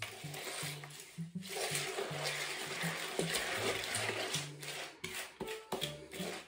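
Wooden spoon stirring cornflakes through melted chocolate in a mixing bowl, a steady scraping, stirring noise. Quiet background music runs underneath, its bass stepping between a few low notes.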